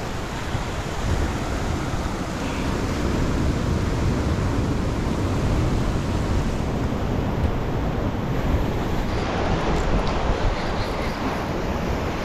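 Ocean surf breaking and washing over a rocky shore, with wind rumbling on the microphone.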